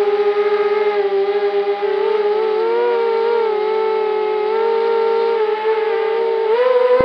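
250-size quadcopter's four brushless motors and propellers whining steadily, heard through the onboard camera's microphone. The pitch wavers with throttle and steps up near the end.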